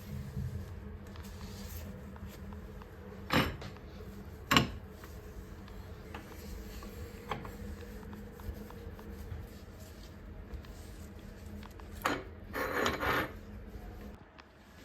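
Household objects being handled: two sharp knocks a second apart, a light click later, then a short scraping rub.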